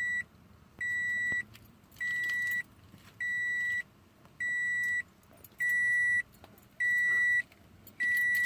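The Scion FR-S's warning chime beeps repeatedly, a steady high tone about half a second long roughly every 1.2 seconds. It is the keyless system's alert after the smart key was taken out of the car with the power still on.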